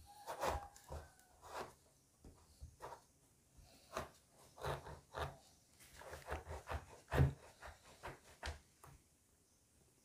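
Kitchen knife cutting through the thick rind of a pomelo in short, irregular strokes.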